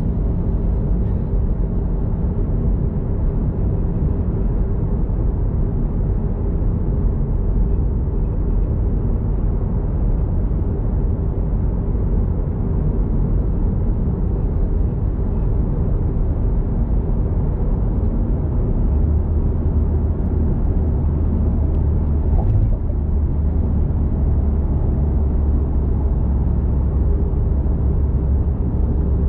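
A car driving on city roads: steady engine and tyre rumble. About two-thirds of the way through, a deeper steady hum grows stronger.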